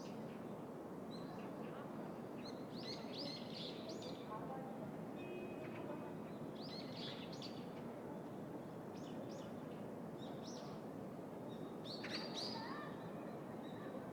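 Small birds chirping in short clustered bursts every second or two, over a steady hum of city background noise.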